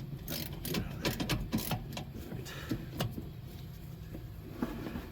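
A run of sharp clicks and knocks, thickest between about one and two seconds in, with a few more later, over a steady low hum.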